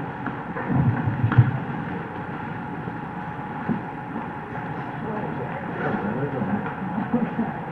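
Hall room noise with faint, indistinct voices and a few low bumps in the first second and a half, as people move about.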